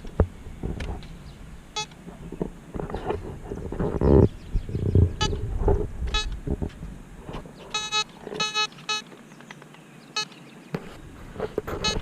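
A metal detector beeping in short pitched tones over a buried target, with a quick run of about four beeps around eight seconds in. Between the beeps come scrapes and thumps of shovel digging in the yard soil.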